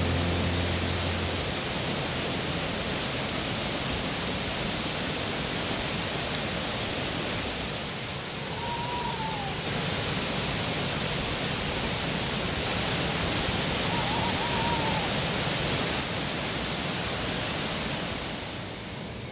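Steady rushing of nearby flowing water. A short rising-and-falling whistle-like call sounds twice over it, about eight and fourteen seconds in.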